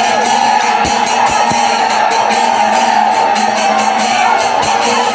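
Kerala temple festival music: a percussion ensemble with rapid, evenly repeated cymbal strikes under a steady held tone, mixed with crowd noise.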